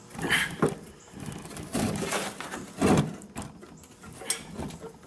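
A wrench worked back and forth on a nut welded onto a seized, broken-off stainless bolt in an exhaust manifold, in an effort to twist the bolt free. The metal gives irregular creaks and clicks in uneven bursts about a second apart.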